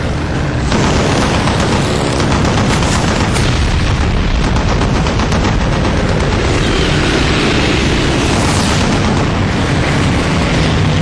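Film sound effects for a biplane flight scene: a loud, dense, steady rumble with booms that never lets up.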